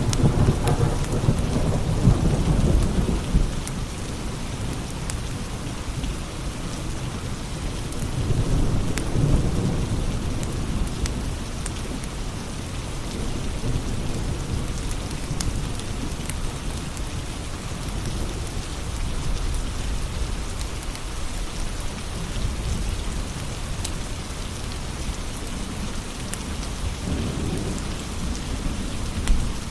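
Steady rain with rolls of thunder, heaviest in the first few seconds and swelling again about eight seconds in and near the end, over scattered crackles of a wood fire.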